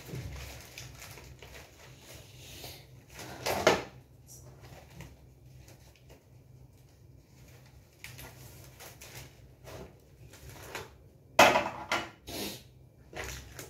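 Thin sheets being sorted and folded by hand: soft rustling with a few sharper crinkles. There is a louder rustle a little under four seconds in and a louder handling noise near the end as the stack is set down on a wooden table.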